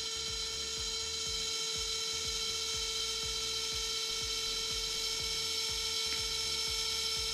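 Canon Ivy ZINK pocket photo printer running mid-print, feeding the photo out: a steady mechanical whine with a fast ticking underneath, a grinding, aggressive-sounding drive.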